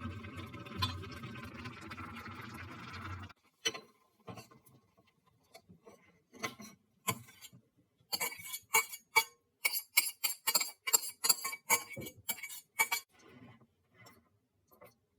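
A steady hum for about the first three seconds, which cuts off. Then comes a run of sharp clicks and clinks of small hard objects, densest about eight to thirteen seconds in.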